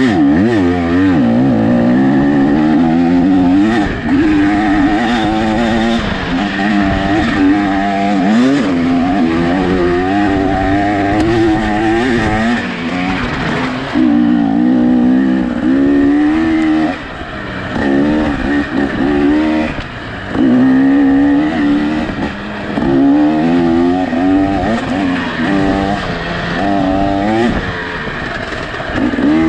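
2024 KTM 300 XC-W two-stroke engine with an FMF Fatty pipe and Powercore silencer, revving up and down constantly under throttle. In the second half it falls away briefly several times as the throttle is shut, then picks up again.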